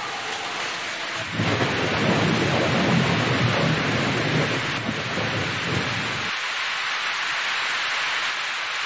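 Heavy rain hissing steadily, with a long roll of thunder rumbling from about a second and a half in until about six seconds in.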